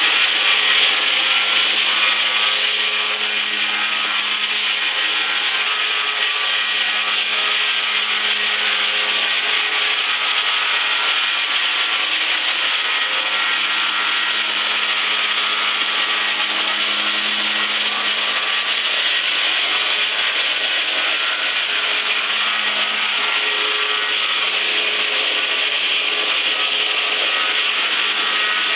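A machine running steadily: an even whooshing noise with a low hum underneath, unchanging throughout.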